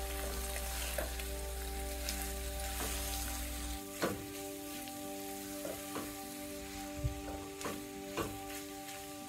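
Sliced onions frying in oil in a pan, sizzling as a spatula stirs them, with the spatula scraping and knocking against the pan several times, most sharply about four seconds in.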